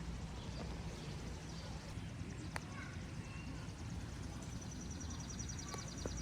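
Quiet outdoor ambience with a low rumble and a faint sharp click about two and a half seconds in. About two thirds of the way through, an animal's high, rapid pulsing trill starts and runs on.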